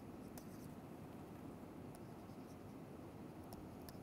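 Faint stylus writing on a tablet screen: a few light ticks and scratches over low, steady room noise.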